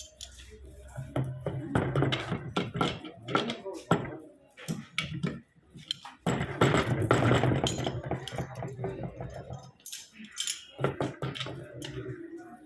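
Hand tools and metal pipe fittings knocking and clinking during plumbing work, in many irregular sharp strokes.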